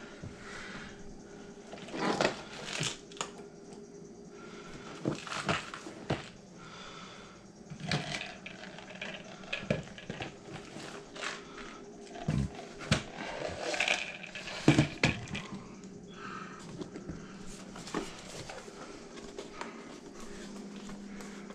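Irregular clicks and knocks of a hard drive and its cables being handled and fitted into a desktop computer case, over a faint steady hum.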